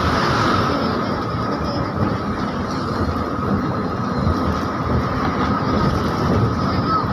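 Steady running noise of a moving bus heard from inside the cabin: engine and road noise with no break or change.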